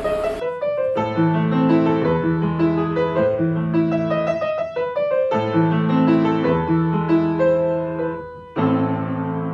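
Background music: a piano-like keyboard piece with a bass line and melody. It cuts in sharply about half a second in, replacing another track, and breaks off briefly near the end before resuming.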